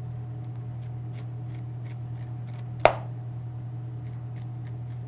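Kitchen knife cutting the rind off a fresh pineapple on a cutting board: a run of small crisp ticks as the blade goes through the skin, with one louder knock of the knife on the board about three seconds in. A steady low hum sits underneath.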